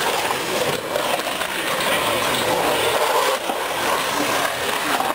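Skateboard wheels rolling on a concrete bowl's walls: a steady rolling rumble that rises and falls slightly, with faint voices of onlookers underneath.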